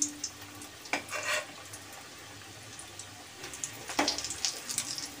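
Breaded egg chops deep-frying in hot oil in a kadai, a steady sizzle with crackles, and a few sharp knocks, about one and four seconds in.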